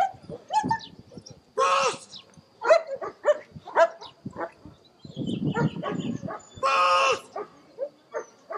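German shepherd barking repeatedly, with two longer, drawn-out barks, one about a second and a half in and one about seven seconds in.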